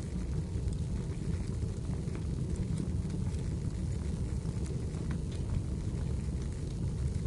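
Wood fire burning in a fireplace: a steady low rumble with scattered small crackles and pops throughout.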